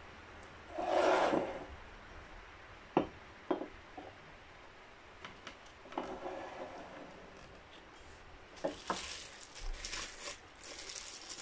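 Ceramic teapot-shaped wax warmer handled on a table: a scrape as the shade is set over its base about a second in, then a few light knocks. Near the end comes the crinkling of plastic wrapping being opened.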